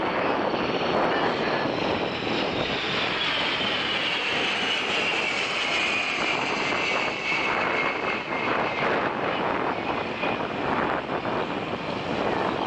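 KC-135 Stratotanker's four jet engines passing low overhead: a steady loud rush with a whine that slides down in pitch as the aircraft goes past and away.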